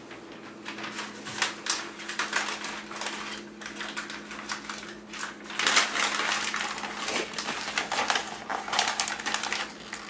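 Pen writing quickly on paper laid on a wooden table: a fast, irregular run of scratches and small taps, busiest around the middle and again near the end.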